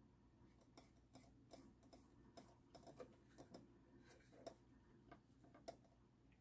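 Near silence: room tone with faint, irregular small ticks and clicks of a fine paintbrush and fingers working on a painted piece.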